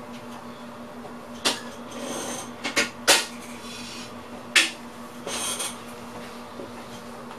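Inside a VIRM train's driver's cab: a steady electrical hum with five sharp clicks and knocks, the loudest about three seconds in, and two short hissing bursts.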